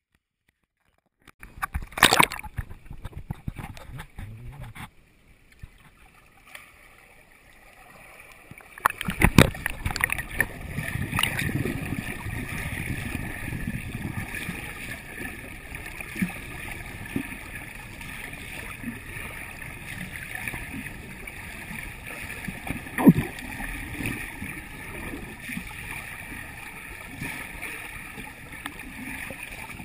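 Water sounds picked up by a camera in a pool alongside a freestyle swimmer: splashing early on, then, with the camera underwater, a steady muffled rush and gurgle of moving water. One sharp knock about three quarters of the way through.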